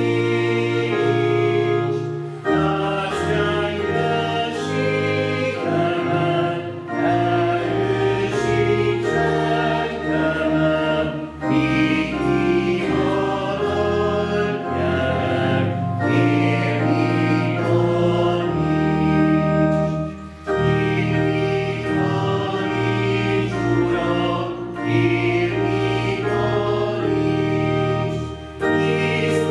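Choir singing a slow Hungarian hymn in long held phrases, with a short breath-break about every four to five seconds.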